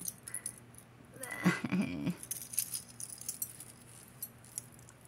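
Metal costume-jewelry chains and pendants clinking and jingling in light, scattered clicks as they are handled and untangled. A brief murmur of a voice about a second and a half in.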